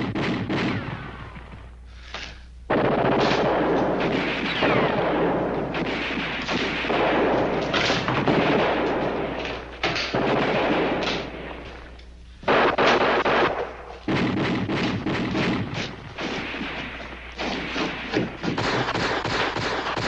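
Sustained machine-gun and small-arms fire, nearly continuous, with short lulls about two seconds and twelve seconds in.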